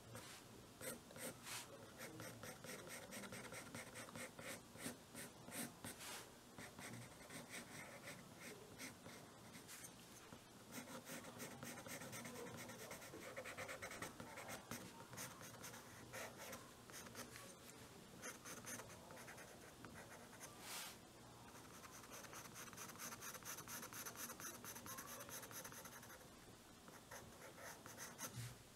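Faint scratching of a soft 4B graphite pencil on drawing paper: many short strokes, then a longer stretch of steady back-and-forth hatching in the last third.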